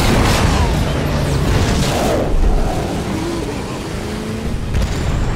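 A sudden loud blast with flying debris, followed by the engines of war vehicles running through the dust.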